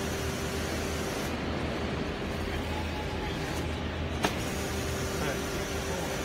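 Four-cylinder brake pad hot press running with a steady hum and hiss from its hydraulic system. There is one sharp click a little over four seconds in.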